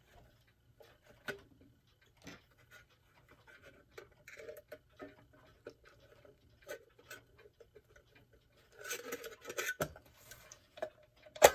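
Small clicks, taps and light scraping of a clock's metal dial and hour hand being worked loose and lifted off by hand, with a busier stretch of rustling and clicking about nine seconds in and one sharp click near the end.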